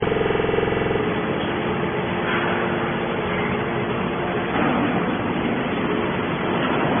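Scrap metal baling machinery running with a steady, noisy mechanical sound. A pitched hum in the first second stops abruptly about a second in.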